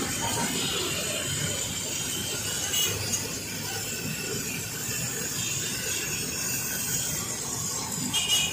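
Oil sizzling steadily in a large karahi wok full of deep-frying dough rounds, with a brief clink near the end.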